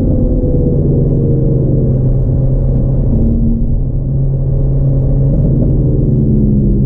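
Renault Megane RS Trophy's turbocharged four-cylinder engine running hard on track, heard loud from inside the cabin. The note dips briefly about four seconds in, then climbs again.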